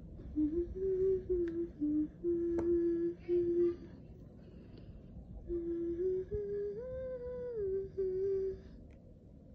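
A person humming a slow tune with closed lips: two short phrases of held, stepping notes, with a pause of about two seconds between them.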